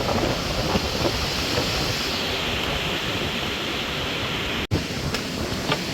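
Steady rushing of wind blowing across the microphone. It breaks off for an instant about two-thirds of the way in, then a few faint clicks follow.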